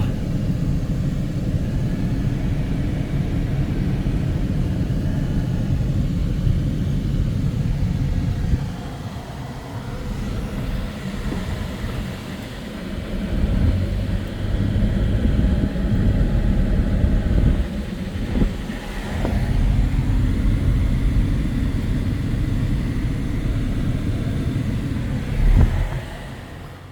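Continuous low rumble that swells and dips unevenly, with a few brief knocks, the loudest a couple of seconds before the end.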